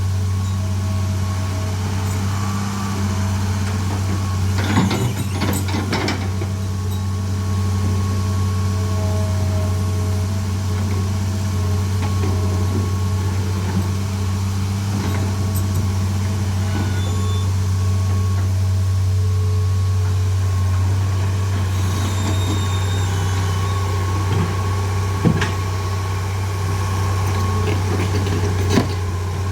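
Excavator's diesel engine idling steadily, with a few sharp metallic knocks, a cluster about five seconds in and a couple near the end.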